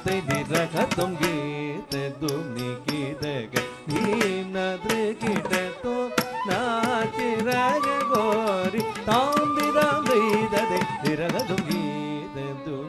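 Carnatic music: an ornamented melody full of slides and turns over a fast, dense pattern of hand-drum strokes.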